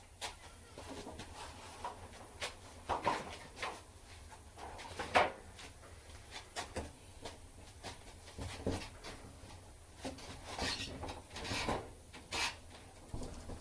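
A sheet of OSB being dug out of a stack of boards: wood scraping, rubbing and knocking at irregular intervals, with a sharper knock about five seconds in.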